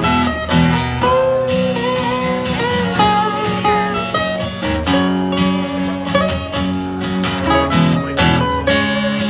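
Two guitars playing live, an acoustic guitar and a red guitar. Strummed chords carry under a melody line with bending notes, with no singing.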